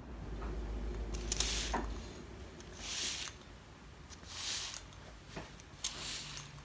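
Pump-action plant mister spraying water onto houseplant leaves: four short hissing puffs about a second and a half apart, with small clicks from the pump.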